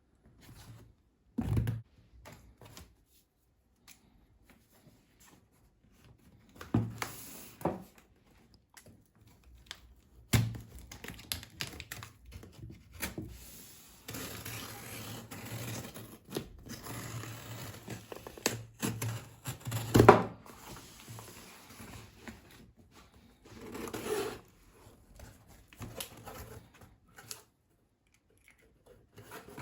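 Packaging being handled and unwrapped: crinkling and tearing with scattered clicks and knocks, a longer stretch of rustling in the middle, and one sharp knock about twenty seconds in.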